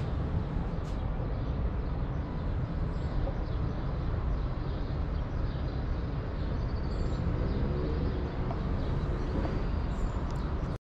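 Steady city street ambience: the low, continuous rumble of road traffic passing.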